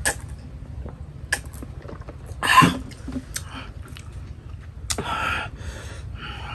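A man coughs once, about two and a half seconds in, then blows out a breathy exhale about five seconds in; a couple of light knocks come before the cough.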